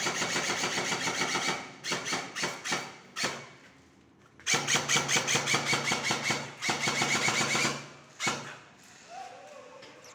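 Airsoft electric gun firing full-auto bursts: a fast mechanical rattle over a gearbox whine. One long burst at the start, a few short bursts around two to three seconds in, then another long burst from about four and a half seconds to near eight seconds.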